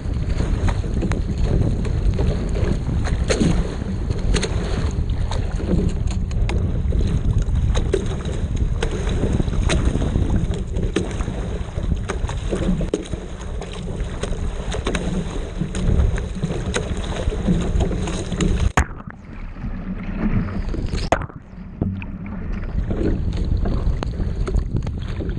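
Wind buffeting the microphone over the rushing and splashing of whitecapped chop against the bow of a Peinert X25 racing shell under oars, with many short splashes along the hull. The noise dies down for a few seconds about three quarters of the way through, broken by one sharp hit, then picks up again.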